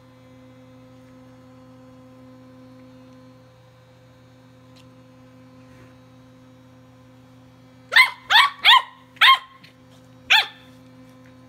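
Welsh Corgi puppy barking five times in quick succession about eight seconds in, at a Sonicare electric toothbrush. Under it, the toothbrush's faint steady buzz runs throughout.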